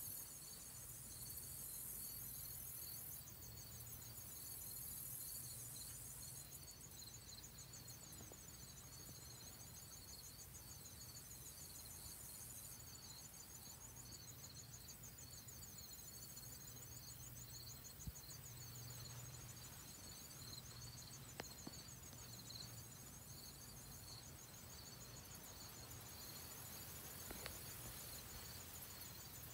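Faint insect chorus: a steady pulsing call with a faster, higher trill over it, and a higher hiss that comes and goes every few seconds. A few faint clicks fall in the second half.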